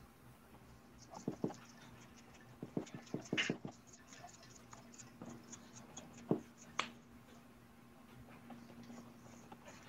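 Scattered light taps and scratchy handling noises from painting tools and materials being handled, in a few short clusters, over a faint steady electrical hum.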